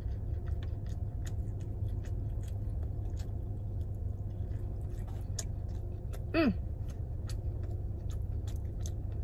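A person chewing food close to the microphone, many small wet mouth clicks over a steady low hum. About six and a half seconds in there is a brief vocal sound falling in pitch.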